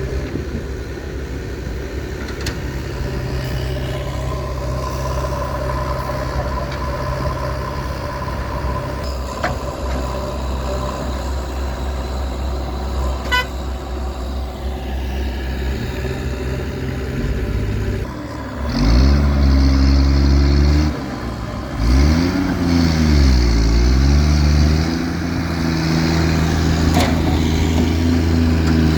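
JCB 3DX backhoe loader's diesel engine running steadily, then, about two-thirds of the way through, getting louder and revving up and down several times.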